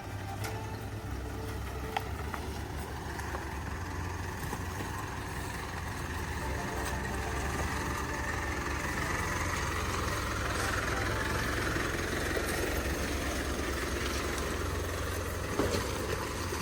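A vehicle's engine running steadily, with a hiss that swells and the sound growing louder toward the middle. It is a car working its way over a rough spot where it had been stuck.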